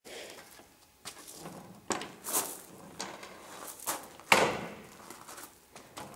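Skateboard on concrete: wheels rolling and scraping, and the board knocking against the ground several times, the loudest clack about four seconds in.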